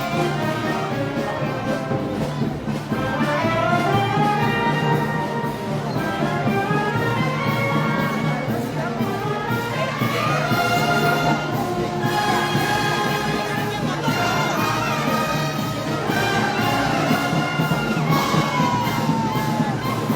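Brass band playing festival music, with trumpets and trombones prominent and melody lines sweeping up and down.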